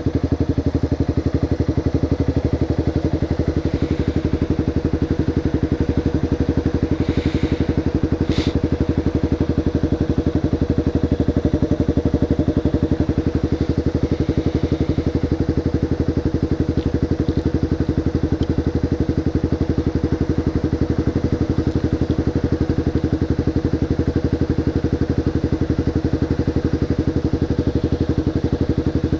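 Motorcycle engine idling steadily, with no revving, and a single sharp click about eight seconds in.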